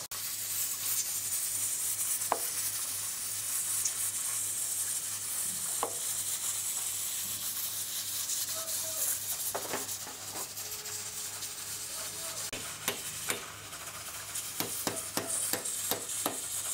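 A steady frying sizzle, with sharp knocks of a knife chopping kingfish on a wooden cutting board: a few spread out, then several in quick succession near the end.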